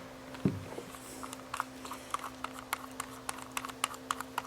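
Faint, irregular light clicks and taps, a few a second, over a low steady hum.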